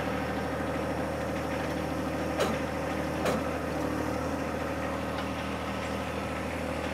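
Compact John Deere tractor's diesel engine idling steadily, with two short clicks about two and a half and three and a quarter seconds in as the three-point hitch is worked.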